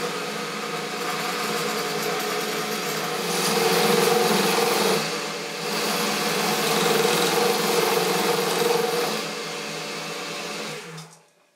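Boxford lathe running with a steady hum while a radius form tool cuts a channel into the face of the workpiece. The sound grows louder while the tool is in the cut, and the lathe stops and winds down near the end.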